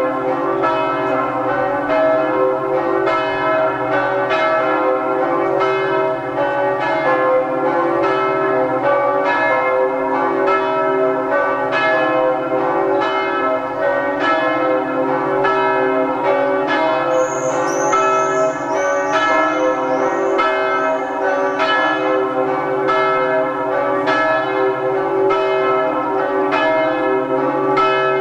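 Church bells of Saint-Jacques ringing in a full peal: several bells struck in a steady run of strokes, their tones ringing on and overlapping.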